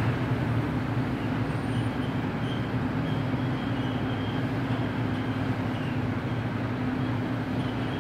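Ward LaFrance Series 2 wrecker's engine idling steadily, a low even hum with no change in speed.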